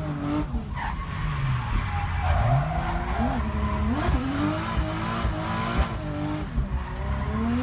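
Drift car's Mercedes M104 3.2-litre straight-six engine revving up and down repeatedly, with tyres squealing as the car slides.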